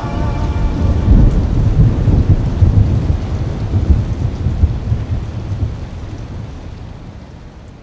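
Rolling thunder over steady rain, the low rumble strongest in the first half, then the whole storm fades out gradually.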